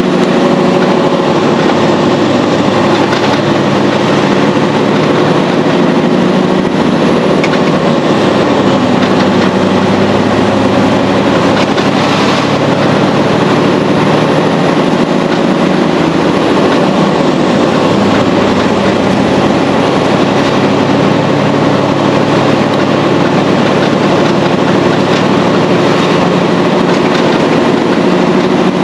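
Mercedes-Benz Actros SLT truck's diesel engine running steadily under way, heard from inside the cab together with road noise, its note drifting slightly up and down as the truck drives along.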